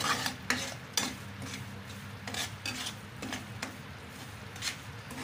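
A metal spoon stirring semolina frying in desi ghee in a pan, scraping against the pan bottom in irregular strokes, with a light sizzle underneath.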